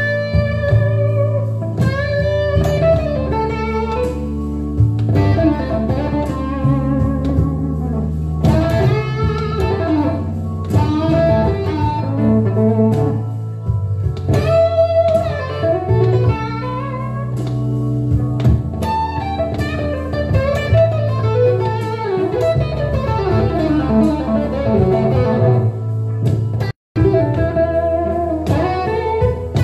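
Electric Telecaster guitar playing improvised blues lead lines with string bends, over sustained low bass notes that shift every few seconds. The sound drops out for an instant near the end.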